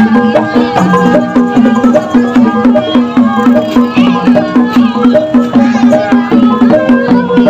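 Live Betawi ondel-ondel street music: drums and small hanging brass gongs keeping a fast, steady beat under a stepping melody.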